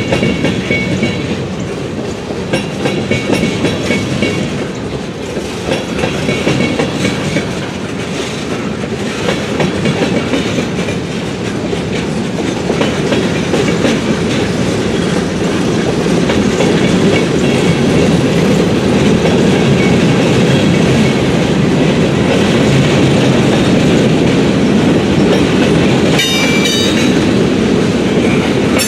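Freight train of gondolas, tank cars and boxcars rolling past: steady wheel rumble with clickety-clack over the rail joints, growing louder about halfway through. Brief high metallic wheel squeal near the start and again near the end.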